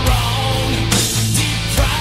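Rock music with electric guitar lines over steady bass and drum beats.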